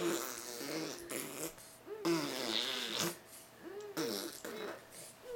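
A baby blowing raspberries, buzzing his lips while vocalising to make wet fart-like noises, in about five bursts of a second or less each.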